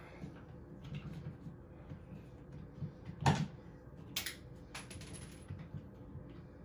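Metal tabs of drywall repair clips being snapped off by hand: a few sharp clicks, the loudest about three seconds in.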